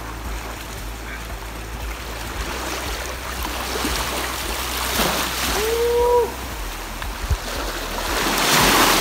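Shallow seawater sloshing and splashing around a person wading and pushing a floating object, with a stronger splash about halfway through and a louder one near the end. A short held vocal call is heard just after the first splash.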